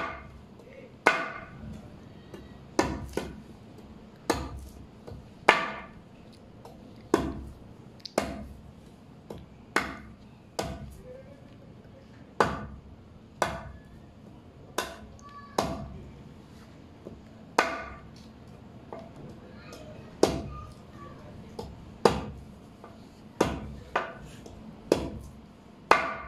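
Tongkat ali root wood being chopped into small pieces: a long run of sharp strikes, about one a second at an uneven pace.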